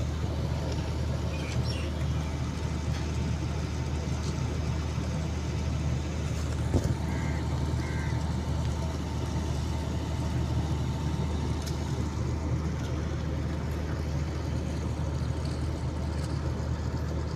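A large engine running steadily at a constant speed, a low even rumble.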